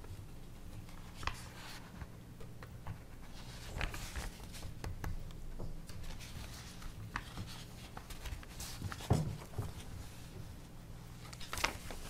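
Pens scratching and papers rustling as board members write and sign documents at a table, with scattered light clicks and knocks, the loudest about nine seconds in, over a steady low room hum.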